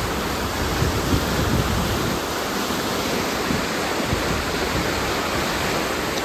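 Floodwater of a swollen creek rushing past in a strong current, a steady full rush with low rumbling surges.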